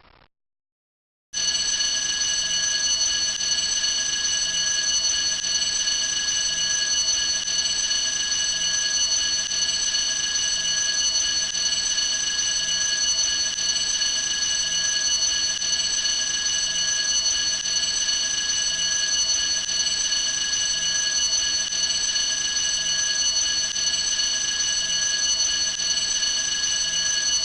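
An alarm ringing steadily without a break: a cluster of high steady tones that starts about a second in after a brief silence and holds at one level throughout.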